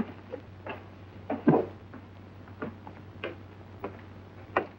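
Footsteps on a hard floor, one step about every 0.6 seconds, the loudest about a second and a half in, over the steady low hum of an old film soundtrack.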